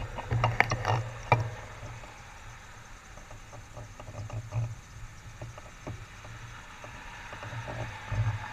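Cars passing through an intersection: a low road rumble that swells and fades as vehicles go by, loudest about midway and again near the end. A few sharp clicks come in the first second and a half.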